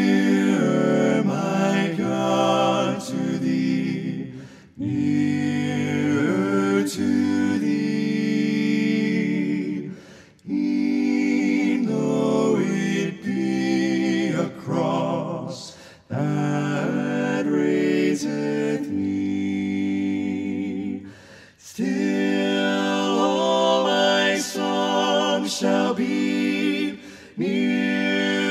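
Several voices singing a cappella in harmony, without instruments: held chords in phrases of about five seconds, each followed by a short breath-pause.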